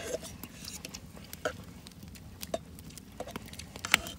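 Quiet handling noise: a few scattered small clicks and light rustles over a faint low hum.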